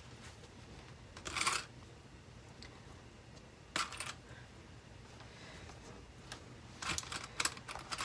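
Quiet handling of plastic sewing clips: a few short, sharp clicks as clips are picked from a cup and clamped onto the fabric edge, with a brief rustle of fabric about a second in and a cluster of clicks near the end.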